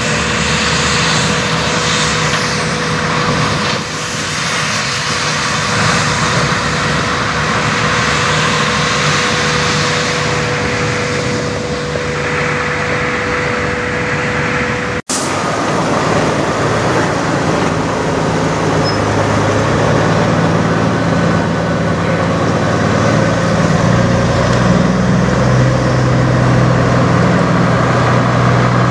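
Semi-truck diesel engines: a tractor-trailer running as it pulls away, then, after an abrupt cut about halfway, another semi's engine running close by, louder in the low end.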